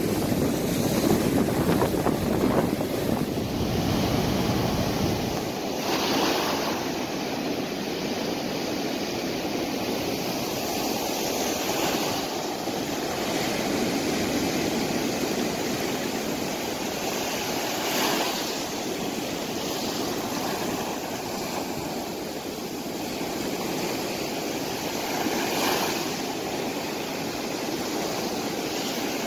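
Sea surf breaking and washing up over a shell-gravel beach, with a louder wave surging in about every six seconds. Wind buffets the microphone with a deep rumble for the first five seconds or so.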